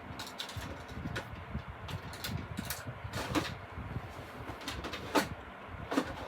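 Scattered light clicks and knocks over a low rumble, the handling noise of things being moved close to the microphone.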